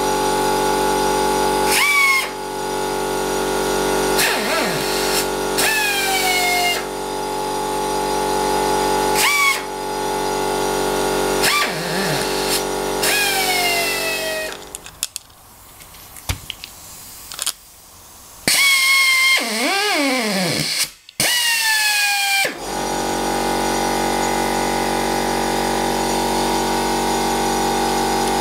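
Air-driven spin-spin rivnut tool running with a steady whine, its pitch sweeping briefly several times as it sets M6 steel rivnuts into 3 mm aluminium sheet. The sound drops away for a few seconds about halfway, then the tool runs again.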